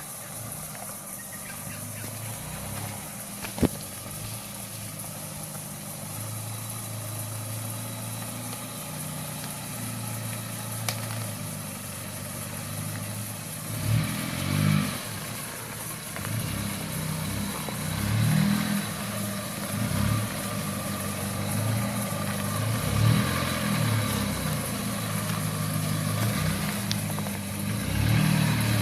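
Nissan GU Patrol's 3.0-litre four-cylinder turbo diesel engine running at low revs off-road, with several short bursts of throttle in the second half. A single sharp knock a few seconds in.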